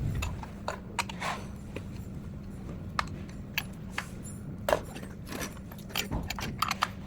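Scattered metallic clicks and clinks of a hand tool working a screw on a handcycle's wheel mount as the screw is tightened hard, over a steady low hum.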